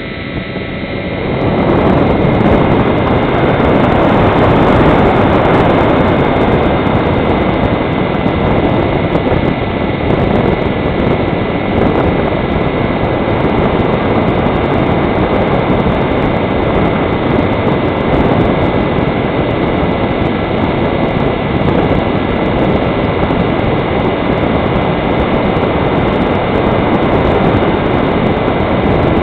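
Electric RC model plane's motor and propeller running under power, heard from an onboard camera with wind rushing over it. It grows louder over the first two seconds, then holds steady with a constant whine.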